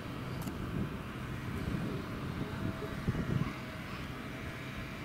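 Outdoor street ambience: a steady low rumble that swells briefly about three seconds in.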